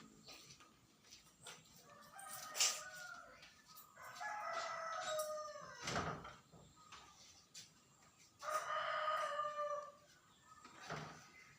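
A rooster crowing twice, each crow drawn out for about a second and a half and dropping in pitch at the end, with a few sharp knocks in between.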